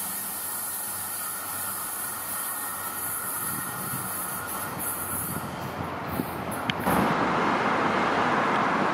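Alstom Citadis Spirit light-rail train running as it pulls away, its high hiss fading over the first six seconds or so. About seven seconds in, a cut brings in a louder, steady rush of open-air noise.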